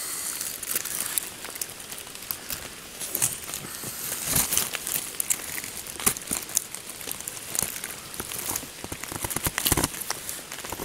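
A tarp crinkling and rustling as it is pulled and spread by hand: irregular crinkles with sharper crackles, loudest about four seconds in and again near the end.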